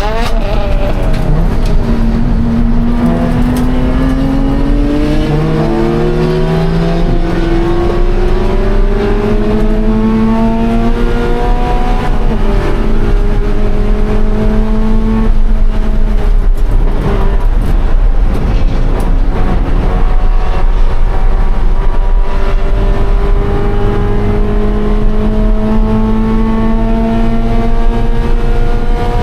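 Race-prepared 2013 Scion FR-S's 2.0-litre flat-four engine running hard, its note climbing steadily under acceleration for about ten seconds. The pitch drops twice, around halfway through, then holds and climbs slowly again near the end.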